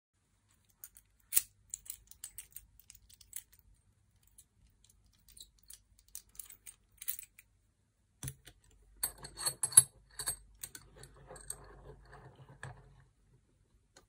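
Small metallic clicks and scratches of a tool being worked in a night latch's pin-tumbler cylinder. Scattered faint clicks at first, then a denser run of louder clicks with handling noise from about eight seconds in, stopping about a second before the end.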